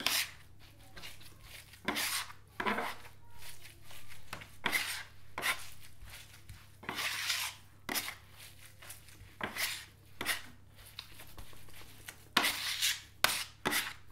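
Cleaver chopping and scraping minced lamb and beef with chopped red pepper, parsley and garlic on an end-grain wooden butcher block. The strokes come irregularly, some short and sharp and some longer scrapes, as the herbs are worked into the mince.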